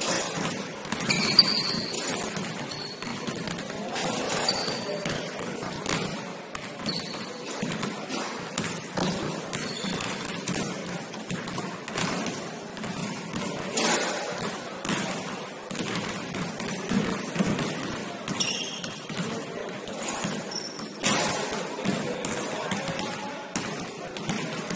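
Basketball bouncing on a gym court during a game, with irregular thumps and a sharp hit about a second and a half in. There are occasional brief high squeaks of sneakers.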